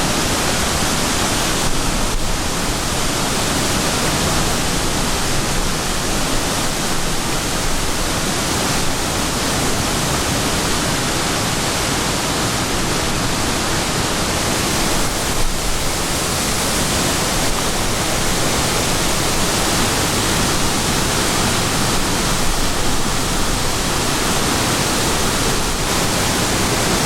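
Waterfall rushing: a steady, even roar of falling and splashing water that holds level throughout.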